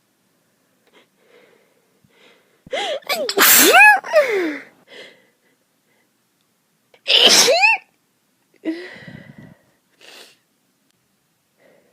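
A person with a cold sneezing twice. The first sneeze, about three seconds in, is long and drawn out, its voiced cry rising and then falling; the second, about seven seconds in, is shorter. A few faint breaths follow.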